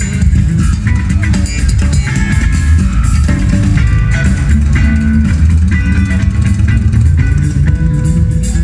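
Live rock band playing an instrumental passage, with no vocals: electric guitar lines over bass guitar and drum kit.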